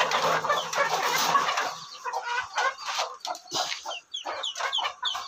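Caged chickens clucking over food: many short calls, several a second, each dropping quickly in pitch. The birds are excited and clamouring to be fed.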